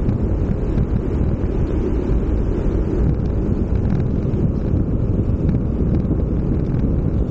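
Wind rushing and buffeting over a bike-mounted action camera's microphone as a bicycle rides along, a steady low rumble.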